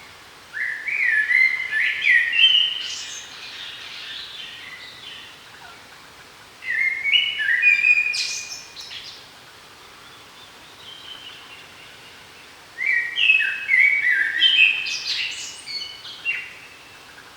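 A songbird singing three phrases about six seconds apart, each a quick run of short clear notes lasting two to three seconds, over a faint steady background hiss.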